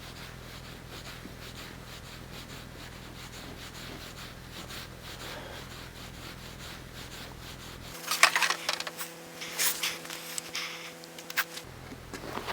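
Paintless dent repair tools working a car's steel quarter panel: faint rubbing and scraping over a low steady hum. About eight seconds in comes a run of sharp knocks and clicks on the metal that lasts a few seconds.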